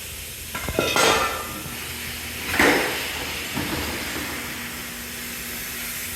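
Tire-shop air tool work: a few sharp metallic clicks, then two short bursts of compressed-air hiss, one with a clatter at about a second in and a louder one at about two and a half seconds, followed by a faint steady hum.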